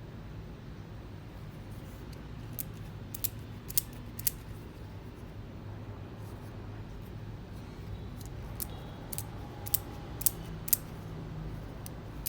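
Leatherworking pliers being worked by hand, their metal jaws clicking shut. The clicks come in two groups of four or five, one group a few seconds in and another near the end.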